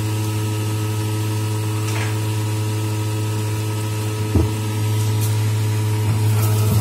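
Electric centrifugal juicer running, its motor giving a steady hum, with a single knock a little over four seconds in.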